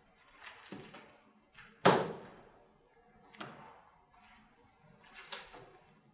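A large hardcover book handled on a table: a sharp thump about two seconds in as the heavy book is laid open, then its thick pages flipped, with a few soft rustling swishes spread over the next few seconds.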